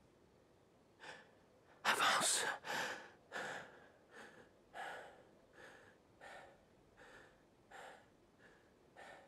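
A woman gasps loudly about two seconds in, then keeps breathing hard in short, audible breaths, a little more than one a second, that slowly grow fainter.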